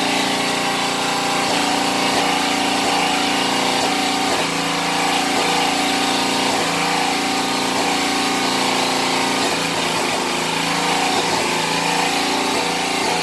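Small engine running steadily at a constant speed.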